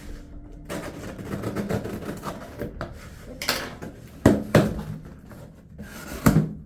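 A shipping package being handled and opened by hand: continuous rustling and scraping of packaging, with a few sharp knocks, two about four seconds in and one near the end.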